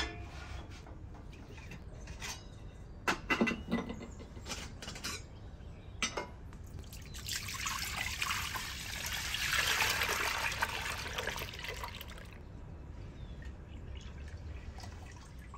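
Cow's milk poured from an aluminium milk can into a stainless steel pot: a steady splashing pour lasting about five seconds, heaviest midway through. Before it come several sharp knocks of things being set down.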